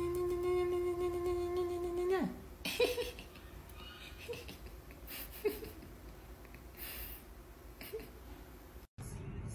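A cat yowling in one long, steady cry that drops off after about two seconds, followed by a few short hisses and brief cries.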